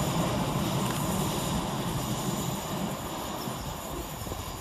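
Class 156 Sprinter diesel multiple unit running away along the line, its low diesel engine drone fading steadily as it goes.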